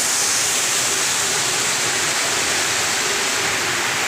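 Heavy rain pouring down: a loud, steady rushing hiss with no let-up.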